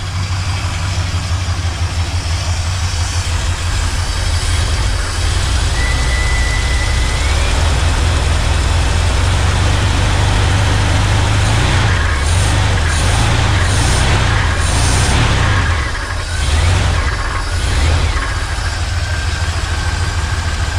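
Small-block Chevy 305 V8 of a 1977 Chevrolet C10 running steadily, swelling a few times in the second half. A rattling noise comes from the engine, which the owner thinks could just be the exhaust.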